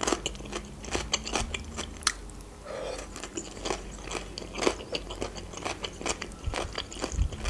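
A person chewing crisp cucumber with the mouth closed, close to the microphone: a steady run of short wet crunches and mouth clicks. Near the end a fork moves in the pasta pan.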